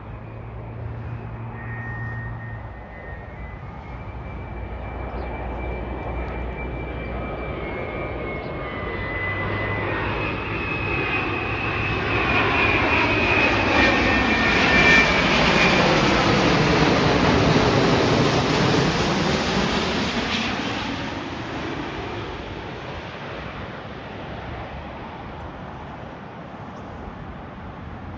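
Jet airliner passing overhead: the engine noise builds up to a peak about two-thirds of the way through and then fades away, with a high engine whine on top.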